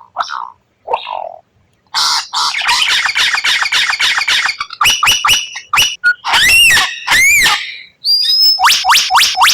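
White-rumped shama (murai batu) singing a varied song. A few short low notes open it, then a fast dry rattle comes about two seconds in, then sharp falling whistles and looping up-and-down notes, and near the end a quick run of falling notes.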